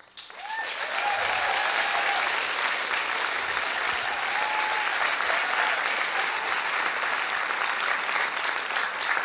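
Large audience applauding, breaking out suddenly and then holding steady.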